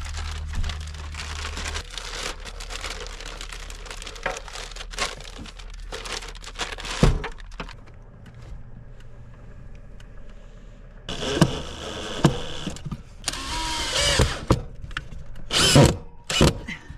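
Handling noise from gear being moved and tucked into place: rustling, clicks and light knocks, with several louder scraping rustles in the last third.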